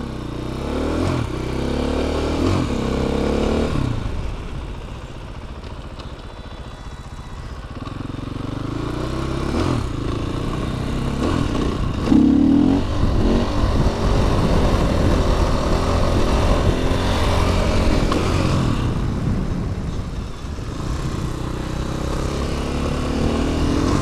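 Dirt bike engine revving as the bike accelerates, its pitch climbing and dropping again and again with the gear changes, over steady wind noise. It is quieter for a few seconds early on, and a sharp loud rev comes about halfway through.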